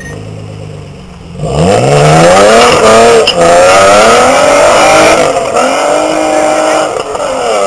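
BMW E36 3 Series saloon's engine accelerating hard. It is quieter for the first second and a half, then revs up sharply and climbs in pitch, dipping briefly a few times.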